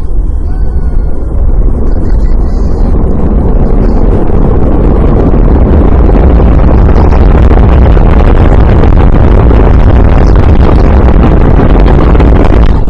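Rocket engines roaring at launch: a loud, crackling rumble heavy in the low end that builds over the first couple of seconds, holds steady, and cuts off suddenly at the end.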